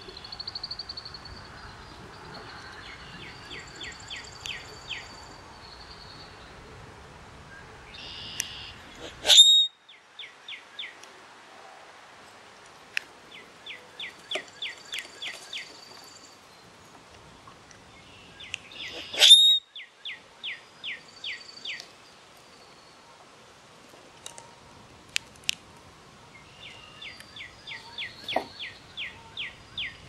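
Spring birdsong from several birds: a short trill of evenly spaced notes, about five a second, repeats every few seconds among thin high whistles. Twice, about 9 and 19 seconds in, a much louder harsh call ends in a sharp squeak.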